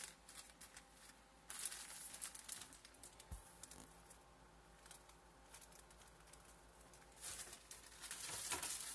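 Plastic marshmallow bag crinkling as it is handled, in two spells: one starting about a second and a half in, another near the end.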